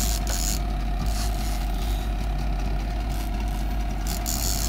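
Fishing boat's engine idling with a steady low rumble and a steady hum, with short bursts of hiss at the start and near the end.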